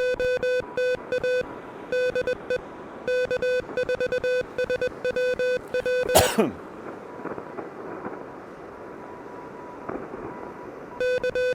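Morse code (CW) tone from an Elecraft KH1 transceiver, a steady pitch keyed on and off in dots and dashes for about six seconds. A single loud short burst of noise comes about six seconds in. After it there is only steady low hiss until the keyed tone resumes near the end.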